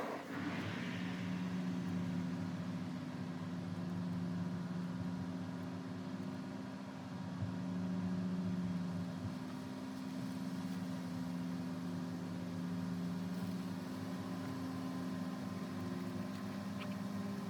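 Steady motor hum with a low, even drone.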